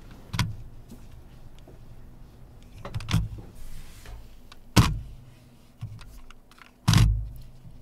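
Several sharp knocks and bumps with some rustling, as people shift and settle at a desk close to the microphone. The loudest two come a little before five seconds in and at about seven seconds.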